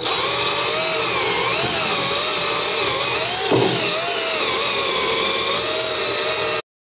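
Cordless drill spinning a flap-style sanding mop against carved Osage orange wood to knock off the fuzz. The motor whine wavers in pitch as the mop is pressed into the carving, dips sharply once about three and a half seconds in, and cuts off abruptly near the end.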